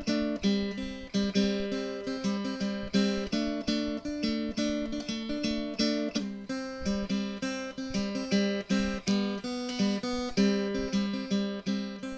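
Outro music: strummed acoustic guitar with a steady rhythm.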